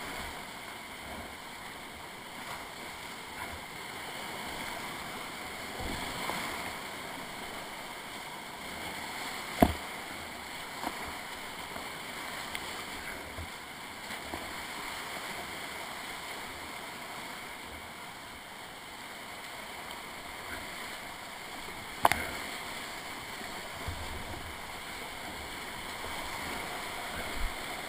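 Whitewater rapids rushing close around a kayak running a steep river, a steady noise. Two sharp knocks stand out, about ten and twenty-two seconds in, with a few fainter ones later.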